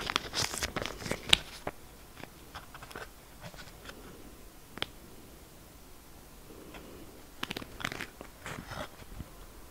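Crinkling and clicking of a thin clear plastic sleeve and a credit-card-size CD-R being handled in the fingers as the card is taken out. A quick run of crackles at first, a single sharp click about five seconds in, and another run of crackles near the end.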